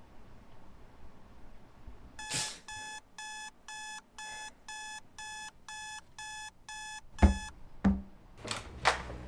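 An electronic alarm beeping in a rapid regular pattern, about two and a half beeps a second for about five seconds, then cut off. Two heavy thumps and two short whooshes follow near the end.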